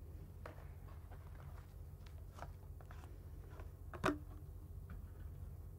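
Faint scattered clicks and light taps of small objects being handled, with one sharper knock about four seconds in, over a steady low hum.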